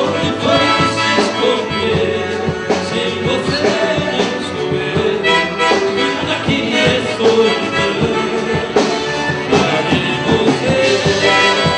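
Live sertanejo song: a male vocal duo singing into microphones over a full band with drums.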